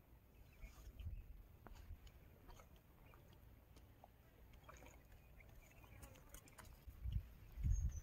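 Faint handling sounds of a caught fish being held and unhooked by hand: scattered quiet clicks and rustles over a low rumble, with a few low thumps near the end.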